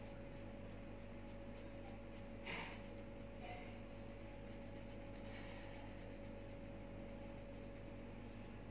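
Faint scratching and rubbing of a green felt-tip marker shading back and forth on notebook paper, with the most audible strokes about two and a half seconds in, over a faint steady hum.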